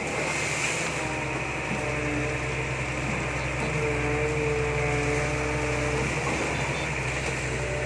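Diesel engine of a Sumitomo long-reach excavator running steadily under load, with a whining tone over it from about a second in to about six seconds in while the boom swings the bucket over the bank and dumps mud.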